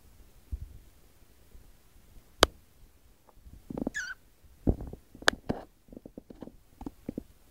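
Cat moving about on a desk and papers: scattered taps and knocks with paper rustling. There are sharp knocks about two and a half and five seconds in, and a short high squeak about four seconds in.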